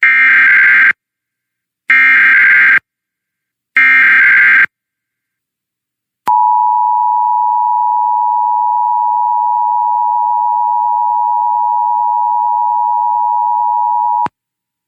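Emergency Alert System test: three short bursts of SAME header data tones, about a second each and a second apart, then the EAS two-tone attention signal held steady for about eight seconds and cut off sharply.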